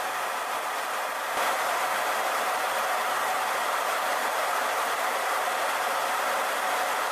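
Steady in-flight jet engine and rushing-air noise with a faint steady hum. It turns slightly louder and brighter about a second and a half in.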